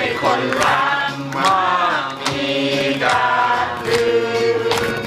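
A small group singing a birthday song together in Thai, with hand claps about twice a second.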